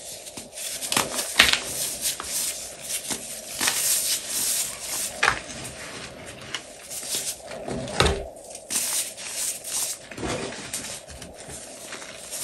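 Blocks of dyed, reformed gym chalk crushed and crumbled by hand into loose chalk powder: irregular crunching and crackling with soft gritty rubbing, and about four sharper crunches as pieces break apart.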